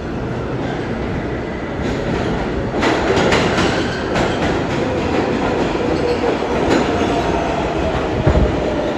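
New York City Subway 7 train cars running, with a steady rumble and the wheels clacking over rail joints from about three seconds in. A faint whine slides down in pitch near the end.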